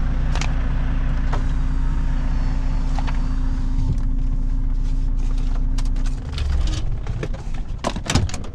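A truck's diesel engine idling steadily, then shut off about six seconds in with a short low shudder. A few sharp clicks and knocks follow near the end.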